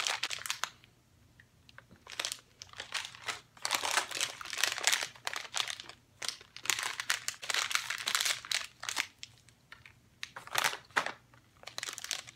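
A plastic M&M's candy bag crinkling on and off in several spells, with short quiet gaps between them.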